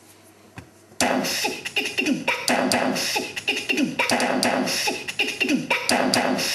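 Intimidation Soundboy sound-effects unit triggered by its buttons. After a short pause, it plays a rapid, rhythmic run of short falling zaps with clicks, about three a second, starting about a second in.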